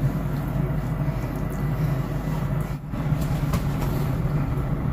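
Steady mechanical hum with a low drone, dipping briefly about three seconds in, with a few faint light clicks.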